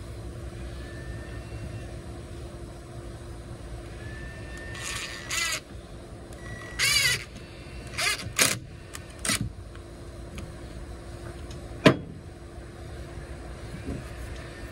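Cordless drill whirring into pressure-treated wood in about five short bursts, one of them rising and falling in pitch, followed by a single sharp knock about twelve seconds in, over a steady low rumble.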